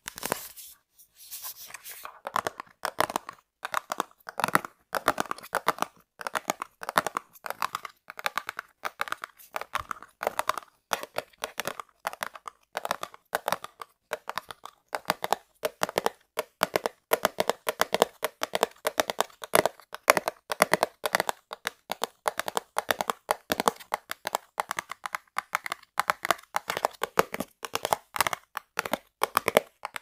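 Fingernails tapping quickly on a cardboard snack box, a dense run of dry, crisp taps, many a second.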